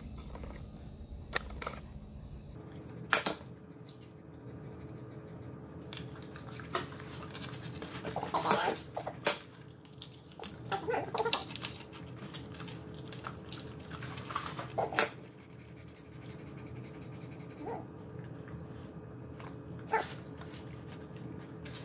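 Husky-type dogs vocalizing in short bursts, with a few sharp taps as eggs are cracked on the rim of a stainless steel bowl.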